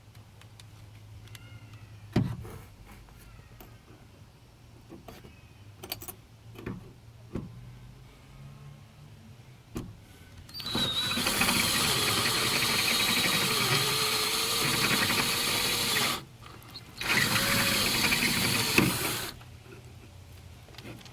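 Power drill drilling out a door-handle rivet in a Ford Windstar's rear side door. It runs in two stretches, about five seconds and then about two, with its motor pitch wavering under load. A few sharp clicks and knocks come before it.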